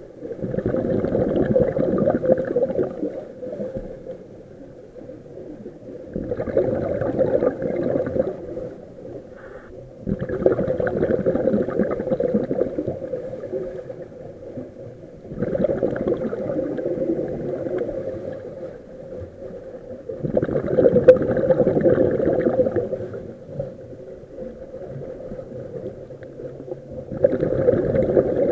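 Scuba diver breathing through a regulator underwater: exhaled bubbles gurgle out in bursts of about three seconds, roughly every five seconds, with quieter stretches between breaths.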